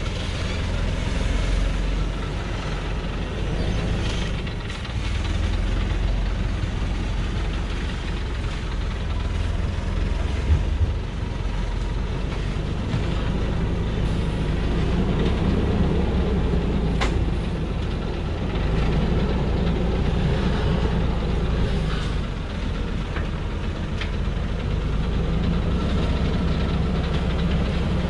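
Loaded diesel truck's engine running low and steady as it crawls down a steep rutted dirt track, its loudness swelling and easing slightly. A single sharp knock about ten seconds in, and a couple of faint clicks later.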